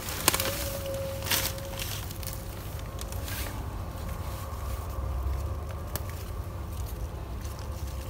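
Mint sprigs being picked by hand from a garden bed: a few soft snaps and rustles of leaves, over a steady low rumble and a faint steady hum.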